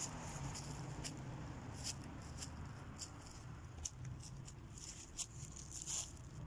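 Footsteps crunching through dry fallen leaves on a dirt path, a crisp rustle with each step, over a low steady hum of traffic.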